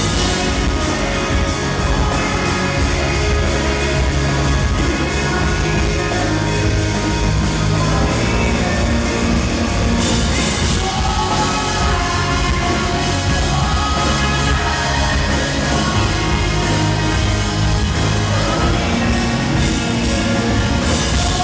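Live rock band playing loud and full: drums with a steady cymbal beat, electric guitars and bass, with some singing, as heard in a concert crowd recording.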